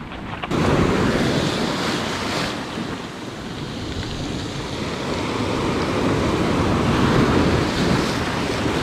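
Sea surf breaking and washing over shoreline rocks, with wind buffeting the microphone.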